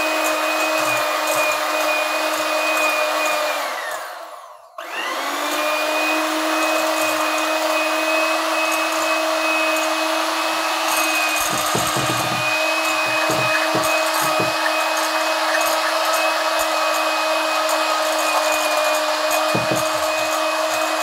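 Electric kitchen mixer running steadily, beating butter-and-sugar batter for cupcakes. It winds down and stops about four seconds in, then starts up again a second later and runs on.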